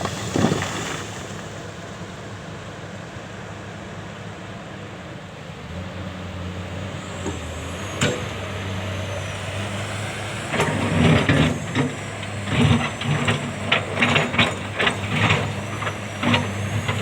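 Diesel excavator engines running steadily. From about ten seconds in, a rapid, irregular series of sharp clanks and scrapes joins them, as the steel bucket works through rock and sand.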